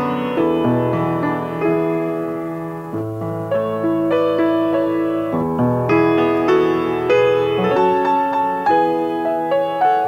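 Grand piano played solo: chords and melody notes struck over held bass notes, each ringing on as it fades.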